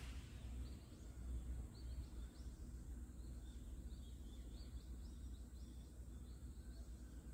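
Outdoor ambience: small birds chirping faintly with short high chirps, repeating irregularly and busiest in the middle, over a steady low rumble.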